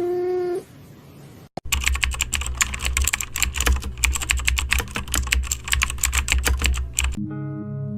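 Rapid computer keyboard typing, a dense clatter of keystrokes over a low hum, lasting about five seconds. It follows a short cat meow at the very start, and a chiming mallet-instrument tune begins near the end.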